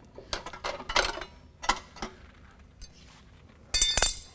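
Spring puller working the steel hanger spring on a Polaris RZR XP 1000's exhaust muffler: a few light metallic clicks, then a louder ringing metallic clatter near the end.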